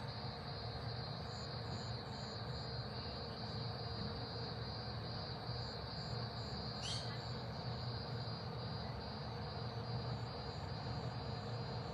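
A steady, high-pitched chorus of insects chirping over a low, even rumble, with one brief chirp about seven seconds in.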